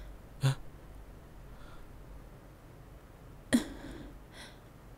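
Quiet room tone broken by two short human vocal sounds: a brief murmur about half a second in, and a sudden, sharper breathy sound about three and a half seconds in that fades quickly.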